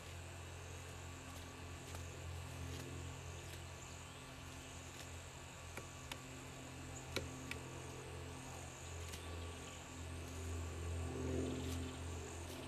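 Steady high buzzing of insects over a low steady hum, with a few sharp taps around the middle.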